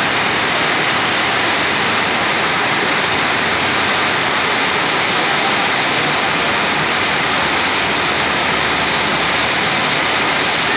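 Heavy rain pouring steadily, a dense even hiss of a downpour on the road.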